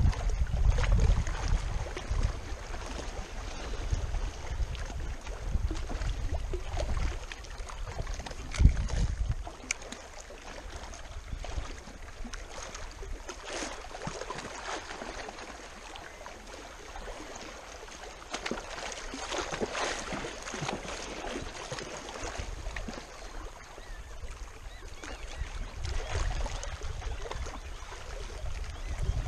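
Wind buffeting the microphone in gusts, easing off about ten seconds in and picking up again near the end. Under it, small waves lap and splash against the rocky shoreline.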